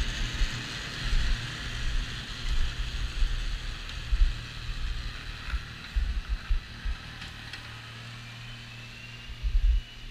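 Tractor engine running with a front-mounted snowblower working, the hiss of the blower and thrown snow fading as the machine moves away. Irregular low thumps come and go through it.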